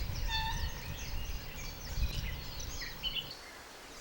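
Several birds calling and chirping at once in short, high calls, over a low rumble that fades out about three seconds in.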